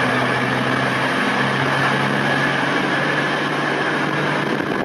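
Virgin Trains Class 221 Super Voyager diesel-electric multiple unit standing at the platform, its underfloor diesel engines idling with a steady low hum.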